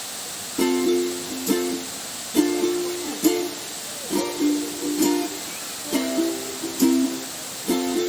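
Background music: a plucked string instrument playing chords in a steady rhythm, about one strike a second, over a steady hiss.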